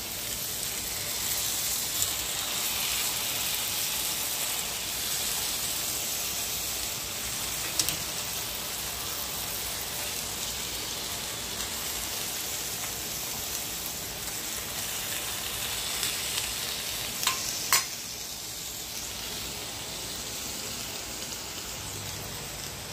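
Pork chops sizzling as they brown in butter in a heavy skillet: a steady frying hiss, with a few sharp clicks, two of them close together about 17 seconds in.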